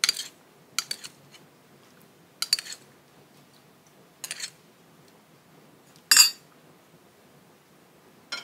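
Spoon clinking against dishes while seasonings such as chili vinegar are spooned into a bowl of noodle soup: a handful of separate sharp clinks spread a second or more apart, the loudest about six seconds in.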